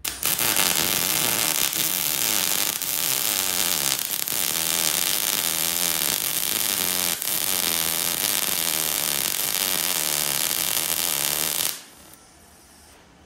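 MIG welding arc from an ARCCAPTAIN MIG205 Pro laying a bead on steel square tubing. The arc runs steadily with a dense crackle and cuts off abruptly near the end.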